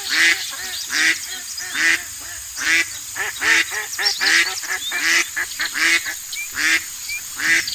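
Ducks quacking repeatedly, a loud quack about every 0.8 seconds with fainter calls in between.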